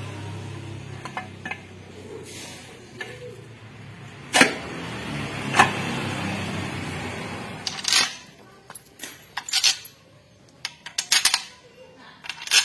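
Metal parts and hand tools clinking and knocking: two sharp clinks about four and a half and five and a half seconds in, then a quick run of clinks and knocks over the last few seconds, with a low steady hum under the first half.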